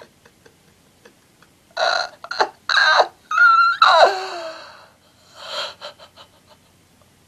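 A man wailing in mock grief: a few short gasping sobs, then a long cry that falls in pitch about four seconds in, and a softer sob near the end.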